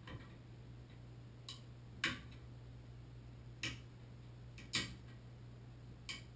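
A hand tool clicking and scraping against the metal of a Moen Posi-Temp shower valve body as it works inside the valve at the stuck cartridge shell. The clicks come irregularly, about six of them, and the loudest is about two seconds in.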